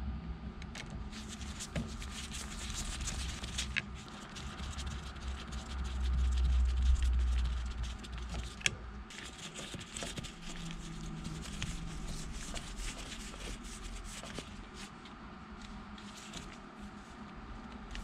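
Hands working in an open steering column: faint scratching, rustling and small clicks of wires and plastic switch parts being pulled and seated, with a low rumble for about two seconds around the middle.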